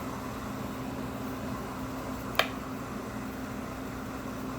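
Steady motor hum from the manicure table's equipment, an electric nail file and dust-extraction vent, with one sharp click about two and a half seconds in.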